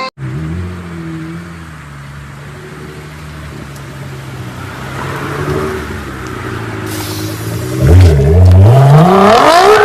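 Nissan GT-R R35's 3.8-litre twin-turbo V6 idling steadily, then about eight seconds in it gets much louder and its pitch climbs steadily as it revs up hard.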